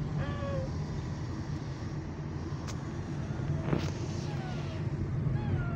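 Steady low engine and tyre rumble heard inside a car's cabin on a winding hill road. A few short falling whistles are heard at the start and again near the end, with a couple of sharp clicks in the middle.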